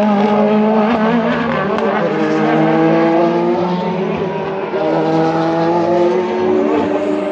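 Engines of several endurance race cars, WEC Hypercars and GT3 cars, running at once, their pitches holding fairly level with slight wavers.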